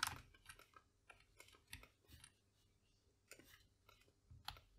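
Faint, scattered clicks of a computer mouse and keyboard being worked at a desk.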